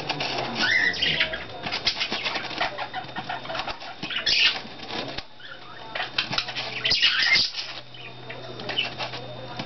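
Pet bird flapping and fluttering its wings while shuffling on styrofoam, in repeated bursts of rustling and scratchy clicks, strongest near the start, about four seconds in and about seven seconds in.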